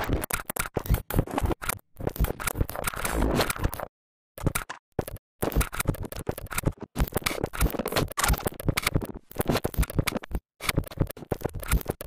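Experimental noise music: dense scratching and crackling clicks, chopped by several abrupt cuts to silence.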